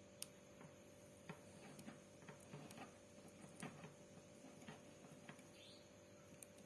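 Faint, irregular small clicks and rustles of the thin insulated wire pairs of a Cat 6 UTP cable being untwisted and straightened by hand, with one sharper click just after the start.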